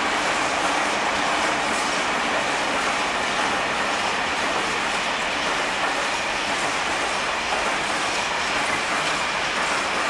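Freight train of Eas open wagons rolling past: steady noise of steel wheels running on the rails.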